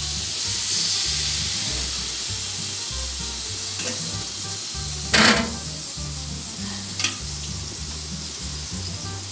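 Meat juices sizzling as they are spooned over a whole chicken roasting in a hot oven. A sharp knock about five seconds in and a lighter one about two seconds later.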